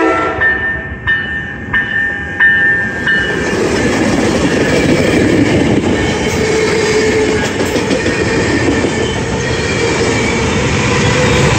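Coaster commuter train passing close at speed, its bilevel coaches' wheels rumbling and clattering on the rails. The tail of the cab car's horn cuts off at the very start, and a few short metallic rings come about two-thirds of a second apart in the first three seconds.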